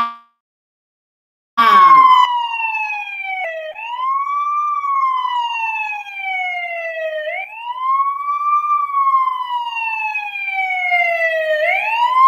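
Recorded ambulance siren wailing, starting about a second and a half in: its pitch sweeps up quickly and glides down slowly, about once every four seconds.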